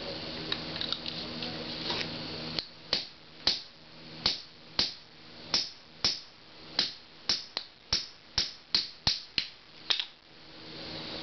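Hammer striking a steel pin punch to drive the base socket out of a CDV-700 probe housing: about sixteen sharp metallic blows, each ringing briefly. The blows start about two and a half seconds in, come faster toward the end and stop about a second before the end. Before them, small clicks of metal parts being handled.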